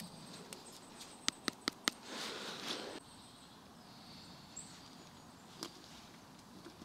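Four quick sharp clicks, then about a second of rustling that cuts off suddenly, over a faint steady high hiss with a short high chirp and a later single click.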